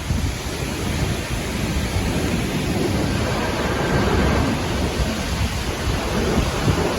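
Storm wind buffeting the phone's microphone: a steady low rumble of noise with small gusts throughout.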